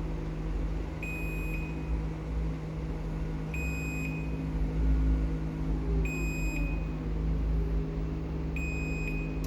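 LiftMaster 98022 jackshaft garage door opener running on its backup battery: a steady motor hum with a short high beep about every two and a half seconds, four in all, the warning that the opener is on battery power. Partway through, a whine falls in pitch as the motor slows.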